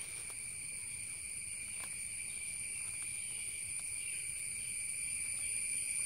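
Steady, high-pitched insect drone with a constant pitch, a chorus of crickets or similar insects. A few faint taps sound during it.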